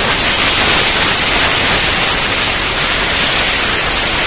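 Loud, steady hiss like static, even throughout, with no distinct knocks or tones.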